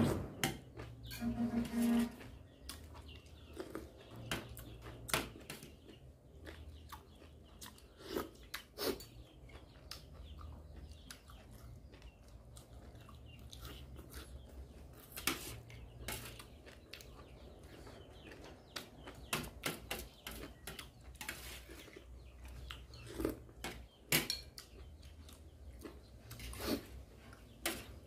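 Metal spoon clinking and scraping against a stainless-steel tray, with chewing, in scattered short clicks.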